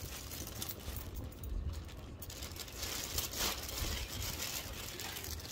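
Rustling and crinkling of clothing and packaging being handled, with a steady low hum underneath.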